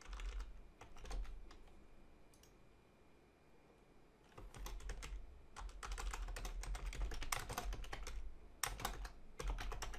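Typing on a computer keyboard: a few keystrokes at the start, a pause of about three seconds, then a steady run of keystrokes from about four seconds in until near the end.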